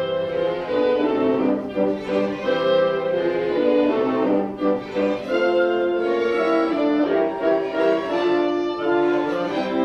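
Background orchestral music led by bowed strings, playing a sustained, changing melody.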